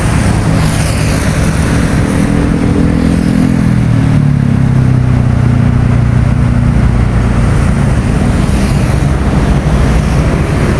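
Steady highway traffic: car engines and tyre noise. A low engine drone sinks a little in pitch between about two and five seconds in as a vehicle passes.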